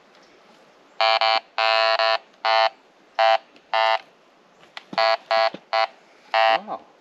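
Metal detector sounding about ten short beeps at one pitch, in irregular groups, as its search coil passes over buried metal.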